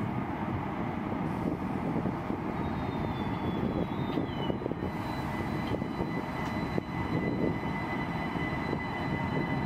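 ICE 1 power car moving slowly along the platform, a steady mechanical rumble with the whine of its traction equipment. A high tone slides down about four seconds in, and steady high whining tones set in about halfway.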